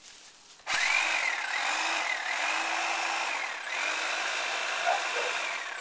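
A small electric saw's motor starts up with a knock about a second in and runs with a high whine. Its pitch sags and recovers three times as the blade bogs down cutting into a thick weed stalk, then falls away at the end.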